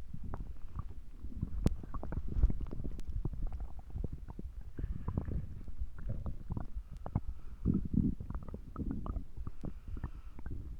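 Stomach gurgling and rumbling, with many quick small pops and squelches and a few louder gurgles.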